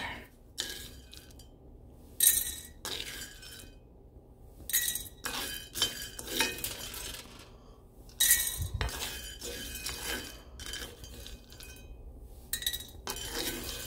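Nearly finished roasted coffee beans rattling and scraping against a cast iron skillet as they are stirred with a wooden spatula, in about eight short, irregular bursts.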